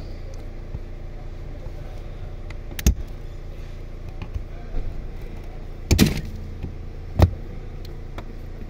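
Hand tools, a thin pick and a screwdriver, probing and prying at a plastic lower-dash trim panel held by a hidden lock clip, giving sharp clicks and knocks about three, six and seven seconds in, over a steady low hum.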